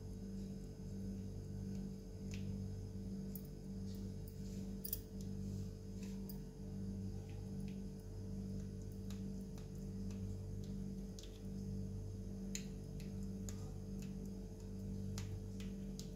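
Knife cutting through set kalakand in a steel plate, with scattered light clicks of the blade against the metal, over a steady low hum.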